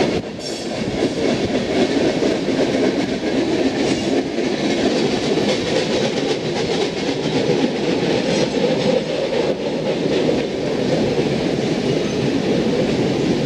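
Freight train cars rolling steadily past, a continuous rumble of wheels on rail with occasional clacks.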